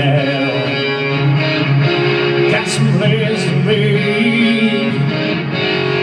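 A live band playing a song with guitar to the fore; the lead vocal comes in right at the end.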